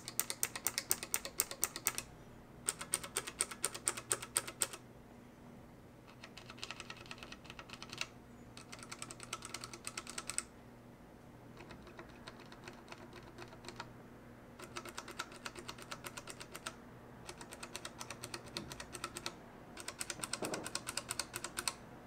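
Low-profile mechanical keyboard switches (Gateron low-profile and Keychron optical switches in linear, tactile and clicky types) being pressed rapidly on a switch tester, one switch type after another. The clicking comes in eight runs of about two seconds each with short pauses between them. Some runs are sharper and louder than others.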